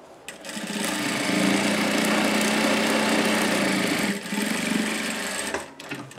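Industrial straight-stitch sewing machine stitching a zipper seam at a steady speed: it starts about half a second in, dips briefly around four seconds, and stops near the end, followed by brief handling noise as the fabric is pulled out from under the foot.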